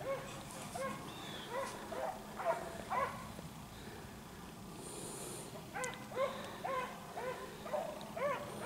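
Pack of beagles baying as they run a rabbit on its track. The short calls come in two spells, with a lull of about two seconds in the middle.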